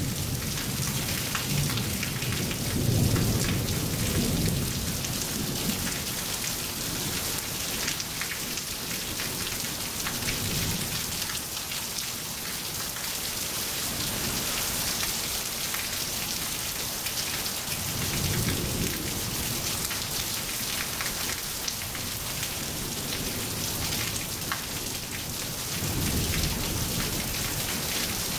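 Heavy rain falling on pavement, a steady hiss, with low rumbles of thunder rolling in at the start, again about midway, and near the end.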